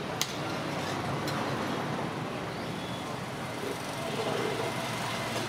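Steady roadside traffic noise, with two sharp clicks, one about a quarter second in and one just over a second in.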